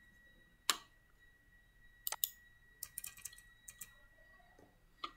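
Clicks and taps at a computer's mouse and keyboard: a sharp click about a second in, a quick pair around two seconds, a run of lighter clicks just after, and one more near the end, over a faint steady high-pitched whine.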